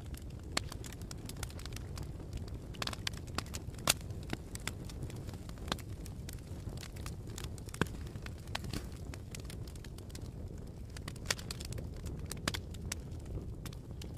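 Fireplace fire crackling, with irregular sharp pops over a steady low rumble; the loudest pop comes about four seconds in.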